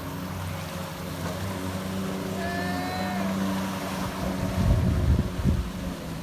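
Jet ski engine running steadily under way, with wind and water noise. A burst of low buffeting comes about five seconds in.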